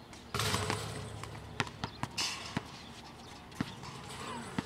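Balls bouncing and thudding on a concrete court: irregular single knocks about every half second to second. A short loud rush of noise comes about a third of a second in.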